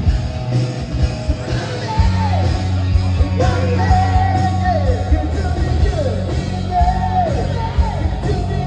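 Live hard rock band playing loudly, with drums beating steadily under electric guitar and singing. Over the top runs a high line of notes that slide and repeatedly fall in pitch.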